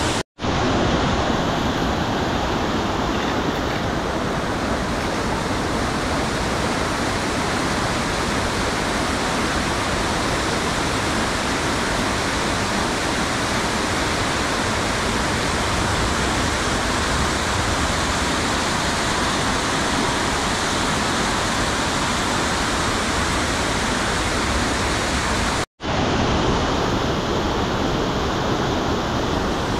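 Fast mountain stream rushing down a stone-walled channel over small cascades: a steady, loud rush of whitewater. The sound cuts out for a split second twice, near the start and near the end.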